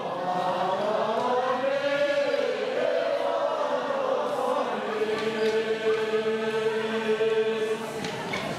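A group of voices singing together in unison, a slow chant-like song: a phrase that rises and falls, then one long held note for about three seconds near the end.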